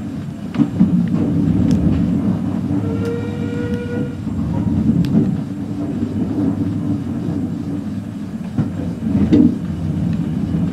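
Railway carriage running along the line, heard from inside: a steady low rumble with irregular clicks from the wheels over the rail joints. A short whistle-like tone from the train sounds about three seconds in.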